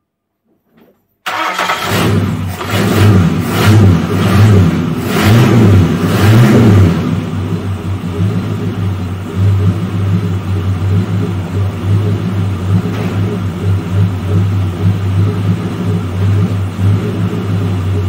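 Ford 351 Cleveland V8 in an XC Falcon running, freshly fired up on fuel from a newly refitted tank: it cuts in abruptly, is blipped up and down in pitch several times, then settles into a steady idle.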